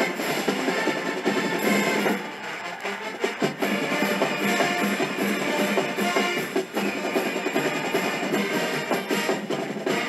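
College marching band playing, with drums prominent, thinning briefly about two seconds in before the full band returns.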